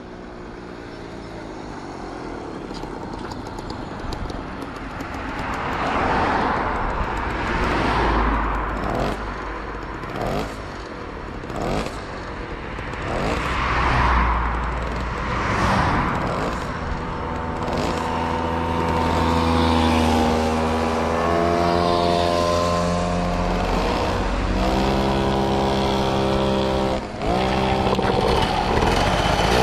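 Small vehicle engines running, with several swelling passes in the first half, then a steadier engine note whose pitch rises and falls with the throttle and grows louder.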